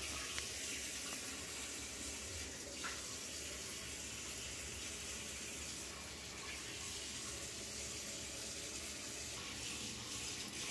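Steady, even rushing of running water, holding one level throughout and cutting off abruptly at the end.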